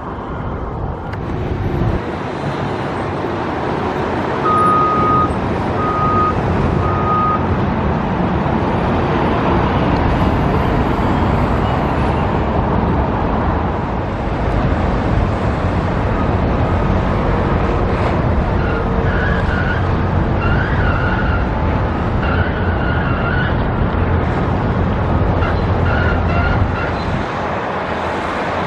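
Steady road traffic and outdoor construction-site noise, with three short evenly spaced beeps about five seconds in.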